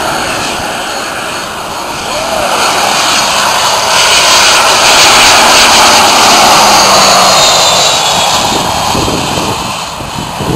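Cessna Citation X business jet's twin Rolls-Royce AE 3007 turbofans on landing approach, passing low overhead. The jet noise swells to its loudest in the middle and then fades, with a high whine that falls in pitch as the jet goes by.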